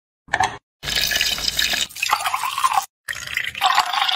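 Lemon halves squeezed in a hand-press juicer, juice splashing and dripping, then, after a brief break, whisky poured from a bottle into a glass in a steady stream.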